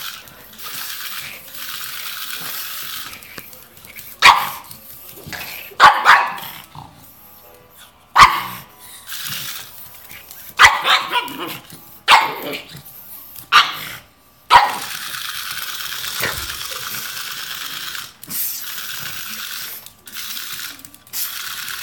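A pug barking at a remote-control toy crab: about ten sharp barks, singly and in quick pairs, through the middle of the stretch. Between the barks a steady high whir comes and goes, the toy crab's motor running.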